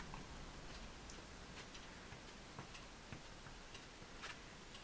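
Faint, irregularly spaced light ticks over quiet room tone as a soft pastel stick is dabbed on the paper and put down.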